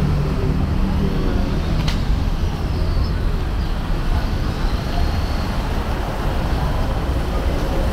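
Street traffic noise: a steady low rumble of passing and idling vehicles. An engine hum fades out in the first second, and there is a single sharp click about two seconds in.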